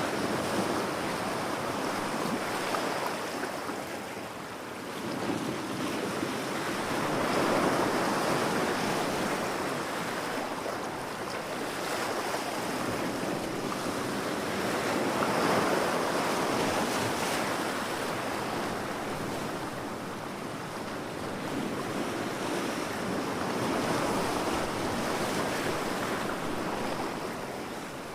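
Ocean surf: waves breaking and washing up, the rushing noise swelling and falling back in slow surges every seven to nine seconds.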